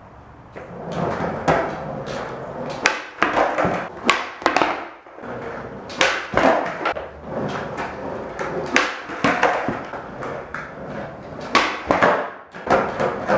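Skateboard rolling on flat ground, starting about half a second in, with repeated sharp pops and clacks of the board as flip tricks are tried and landed or missed.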